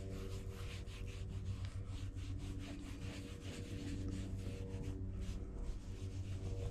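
A cloth rubbing mink oil into a leather knife sheath: quick, soft strokes, several a second, over a steady low hum.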